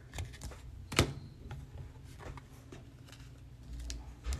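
Trading cards and a plastic card sleeve being handled: soft rustling and light taps, with one sharper click about a second in.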